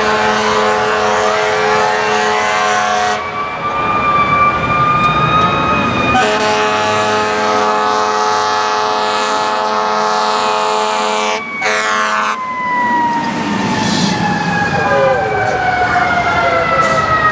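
Fire truck sirens wailing with long blasts of an air horn: one horn blast fades out about three seconds in, a second starts near six seconds and lasts about six seconds. After that a siren winds slowly down in pitch.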